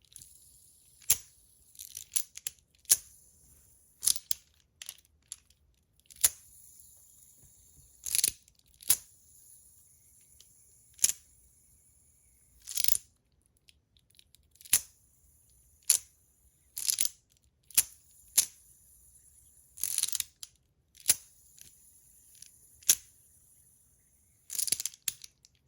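Metal Pillbug fidget toys worked by hand: sharp, bright clicks and snaps at irregular intervals, about twenty in all, some coming in quick pairs.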